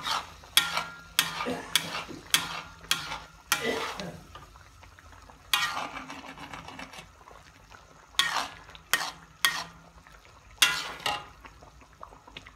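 A metal ladle stirring a thick gravy in a metal pan, scraping the pan in quick strokes about every half second for the first few seconds. After a short pause it comes back in three shorter bursts.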